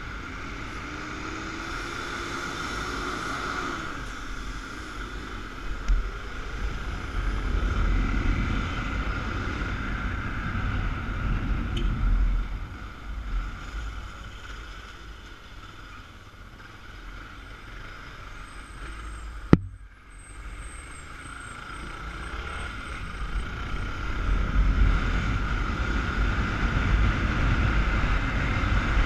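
Motorcycle engine running under way with heavy wind rumble on a helmet-mounted camera, louder near the start and end and quieter in the middle. A sharp click about twenty seconds in, followed by a brief dropout.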